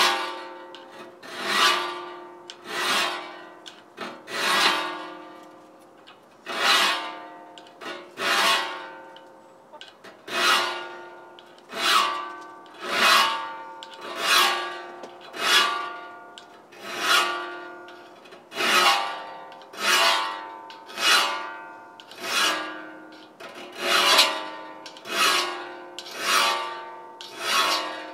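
A hand file being pushed across the teeth of a rip saw clamped in a vise to sharpen them. Each rasping stroke comes about once a second, and the steel saw blade rings after each one.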